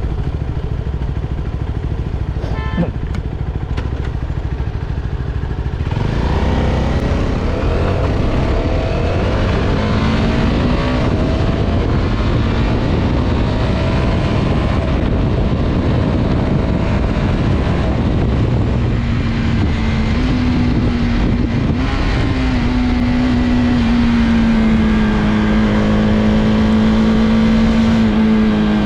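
CFMOTO 250SR's single-cylinder engine idling, then pulling away about six seconds in and revving up through the gears, each rise in pitch cut short by a quick upshift from its HealTech electronic quickshifter. Later it holds a steadier note at cruise and eases off near the end, with wind noise mixed in once it is moving.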